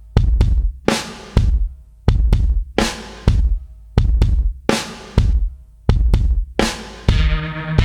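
Intro music with a heavy electronic drum beat: deep kick drum and snare hits repeating at a steady tempo, with a sustained bass line coming in near the end.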